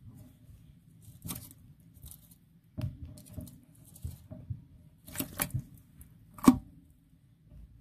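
Plastic spoon scooping and scraping damp soil: a series of short, gritty scrapes and rustles, the loudest about six and a half seconds in.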